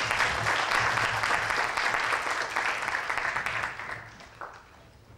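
Audience applauding, many hands clapping at once, dying away about four seconds in.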